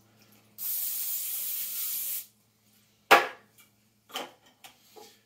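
Aerosol can of nonstick cooking spray spraying once: a steady hiss lasting about a second and a half. About a second after it stops there is one sharp knock, followed by a few faint clicks.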